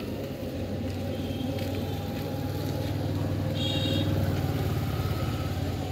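A low, steady engine drone that grows a little louder about four seconds in and drops away near the end.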